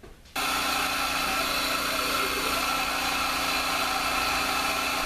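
Air compressor switching on suddenly about half a second in, then running at a steady level with a hum and a hiss, supplying the vacuum for a lathe vacuum chuck.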